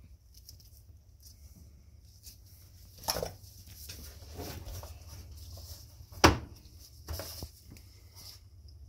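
Handling noises from skinning a horned goat head with a knife on a plastic cutting board: scattered clicks and knocks, the loudest a sharp knock a little after six seconds in, over a low steady hum.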